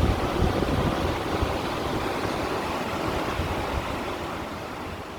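Sea waves washing over shore stones: a steady rushing wash that fades away near the end.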